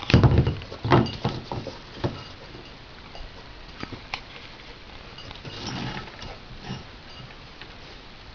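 Dog snuffling and grunting while playing with a water bucket: several short loud bursts in the first two seconds, then scattered clicks and a softer patch of noise about six seconds in.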